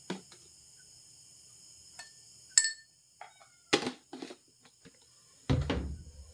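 Kitchen containers being handled on a countertop: a few scattered knocks, one bright ringing clink, and a heavier thud near the end as a plastic jar and glass are moved and set down. Crickets trill steadily in the background.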